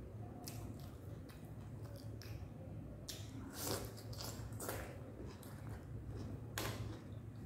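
Close-up mouth sounds of a person eating rice, potato and scrambled egg by hand: wet chewing with short lip smacks and clicks, busiest around the middle when a mouthful goes in. A low steady hum runs underneath.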